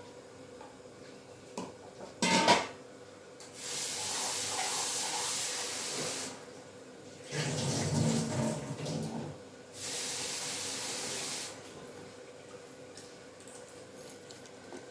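A kitchen tap runs into a steel bowl twice, each time for two or three seconds. Between the two runs the bowl clanks and water sloshes as small Chinese potatoes (koorka) are washed in it, and there is a single clank earlier on.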